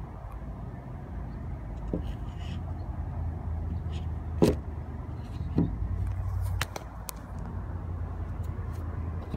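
A few sharp clicks and knocks as folding knives are picked up and handled, the loudest about halfway through, over a steady low rumble.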